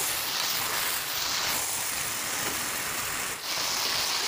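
Chicken pieces sizzling as they fry in hot mustard oil in a steel kadai, being stirred and turned. The sizzle swells and eases as the pieces are moved, dipping briefly near the end.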